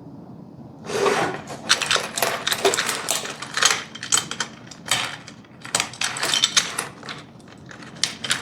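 S-Wave curtain gliders and carriers clattering and clicking in quick irregular bursts as they are pushed along into a Quoya QL600 curtain track, starting about a second in.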